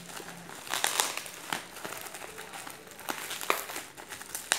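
Bubble-wrap packaging crinkling as it is handled and pulled at by hand, with irregular sharp crackles every second or so.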